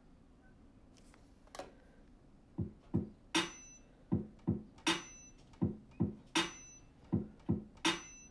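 Drum beat from a drum pad app on an iPad, played over HDMI through the TV's speakers: pairs of kick drums, each followed by a snare-like hit, repeating steadily. It starts about two and a half seconds in, after a single hit.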